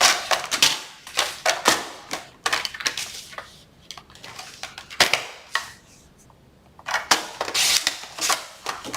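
A sheet of cardstock being handled and cut to size: a string of sharp clicks and knocks, with a denser scraping stretch about seven seconds in.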